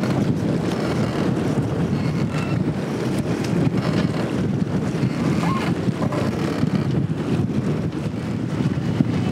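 Steady wind buffeting the microphone over choppy river water, with the rush of waves.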